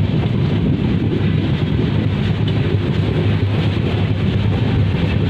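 Steady running noise of a moving passenger train, heard from an open coach door or window, with wind buffeting the microphone.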